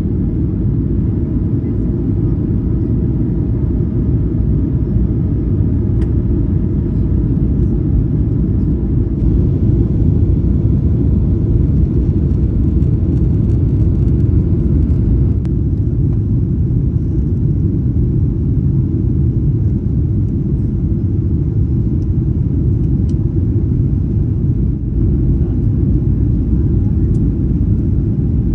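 Steady low rumble of engine and airflow noise inside the cabin of a Boeing 737-800 on final approach with its flaps extended, a little louder for a few seconds in the middle.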